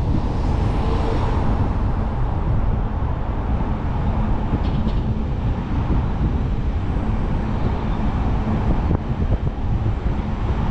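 Car driving along a road: steady low wind rumble on the microphone over tyre and road noise, swelling briefly about a second in.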